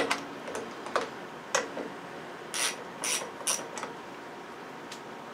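Sharp, irregular clicks, about seven over five seconds, as a screwdriver and hands work at the plastic air-cleaner housing of a lawnmower engine while the carburetor is being taken off.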